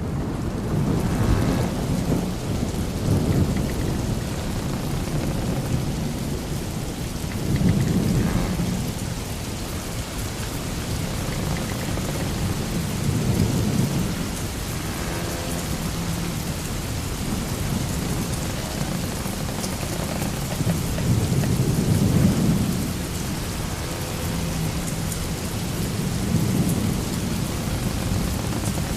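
Sailing-ship sound-effect ambience: a steady rush of storm-like wind and water noise with deep rumbling swells every few seconds.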